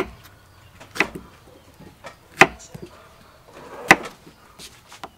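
Kitchen knife cutting through peeled gourd and striking a wooden chopping board: four sharp knocks about a second or more apart.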